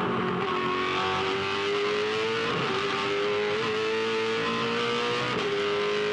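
The 5-litre V8 engine of a Holden Commodore V8 Supercar, heard from inside the cockpit, running hard at high revs in second gear. Its pitch holds fairly steady, rising slightly at first and wavering briefly a few times.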